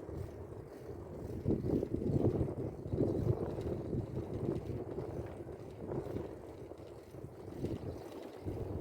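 Wind buffeting the microphone while riding along, a low rumbling rush that swells and eases in gusts.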